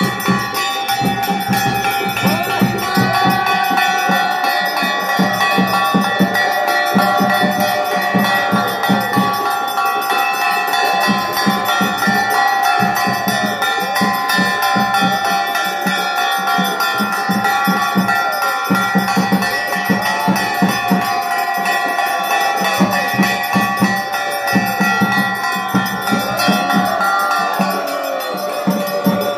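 Temple worship music during a lamp offering: continuous ringing of brass bells over a rapid run of drum beats, with a wavering melody on top.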